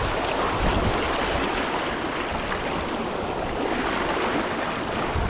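Shallow river water rushing steadily over a riffle, an even hiss and wash.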